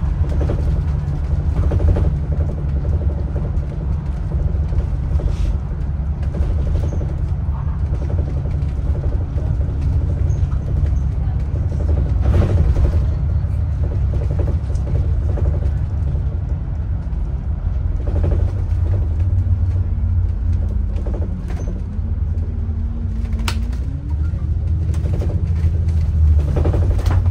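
Inside a moving city bus: the engine and road rumble make a steady low drone, with rattles and creaks from the cabin fittings. About three-quarters of the way through, the engine note dips and then rises.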